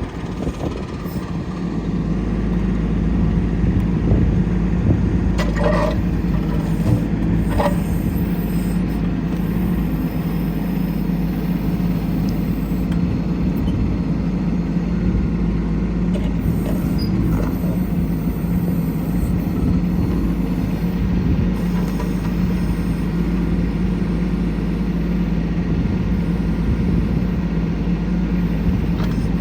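Kubota LX2610 compact tractor's three-cylinder diesel engine running steadily, picking up speed about two seconds in, with a few light knocks about six to eight seconds in.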